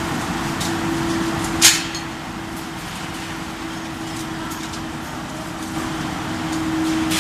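Steady hum and noise of factory machinery, with a single sharp metallic clank about two seconds in and a few faint ticks.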